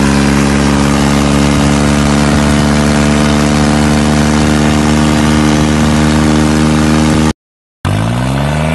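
Tractor diesel engine running at a steady pitch. The sound cuts out briefly near the end, then a tractor engine revs up with a rising pitch.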